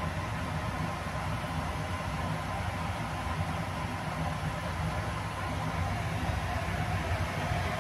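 Steady low hum with an even rushing hiss over it, the running noise of kitchen appliances at the stove, unchanging throughout.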